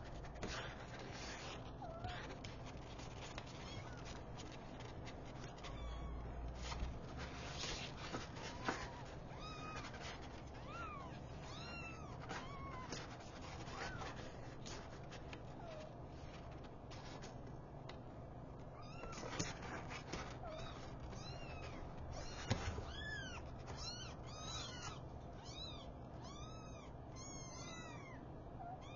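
Young kittens mewing: short, high-pitched mews that rise and fall. They come singly at first, then thick and fast near the end, with a few soft knocks and rustles as the kittens move about.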